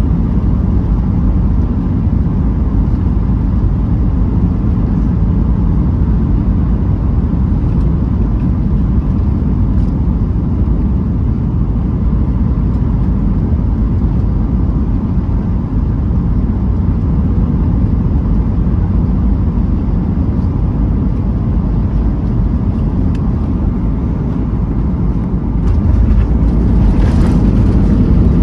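Cabin noise of a Boeing 737 MAX 8 on its landing approach: a steady low roar of its CFM LEAP-1B engines and the airflow. The roar grows louder and brighter near the end.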